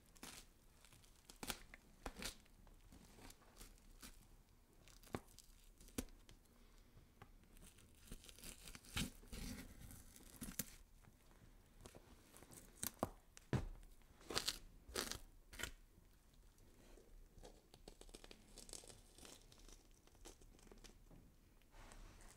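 Horror sound effect of flesh being scraped and cut: irregular wet tearing, scraping and crunching strokes. The strokes bunch into quick flurries about nine seconds in and again around thirteen to fifteen seconds in.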